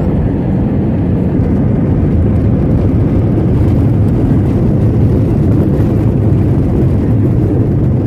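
Airliner cabin noise during landing: a loud, steady low rumble of the jet engines and rushing air as the plane comes down onto the runway and rolls along it.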